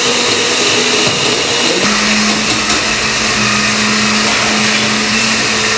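Electric countertop blender running steadily at speed. Its motor hum drops slightly in pitch about two seconds in.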